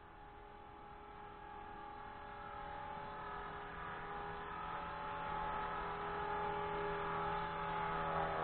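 Blade 180 CFX electric RC helicopter in flight: a steady high whine from its motor and rotor, growing louder over several seconds.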